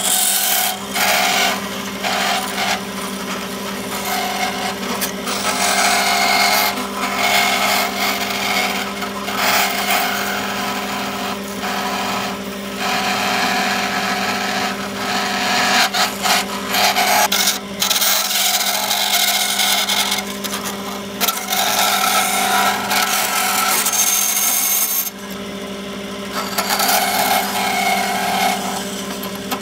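Small bandsaw running with a steady motor hum, its blade cutting a thin copper strip held on a wooden block, the rasping cut starting and stopping again and again. Near the end the cutting pauses briefly, leaving only the running saw, then resumes.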